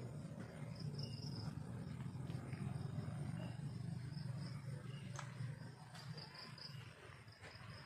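Night insects such as crickets chirping in short, high, repeated pulses over a louder low, steady rumble, with a few sharp clicks after the middle.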